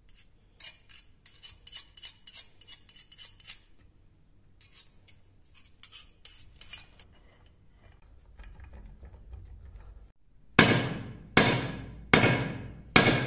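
Small steel palette knife scraping and clicking against a tub and the knife's steel tang as white paste is spread on. Near the end come four loud, sharp strokes about a second apart, each fading away quickly.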